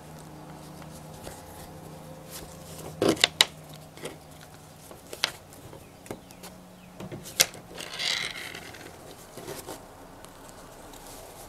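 Upholstery fabric being folded and handled on a table: soft rustling with a few sharp clicks and taps, the loudest cluster about three seconds in and a brief rustle near the end, over a faint steady hum.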